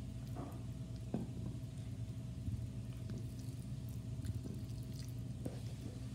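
Fingers pulling apart flakes of cooked salmon on a plastic plate, making soft squishy handling noises and small scattered clicks over a steady low hum.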